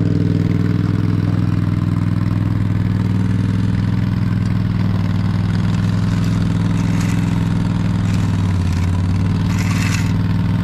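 Diesel engine of an asphalt paver running at a steady speed while laying millings. The engine note shifts slightly about eight seconds in, and a few light clanks come near the end.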